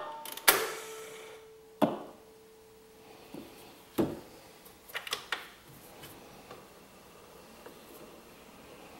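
The gooseneck tone arm and reproducer of an antique acoustic cabinet phonograph handled and moved across the record by hand, with the music stopped: a few sharp clicks and knocks, the loudest about half a second in and a quick cluster around five seconds, then fainter ticks. A faint steady hum sounds for about two seconds after the first knock.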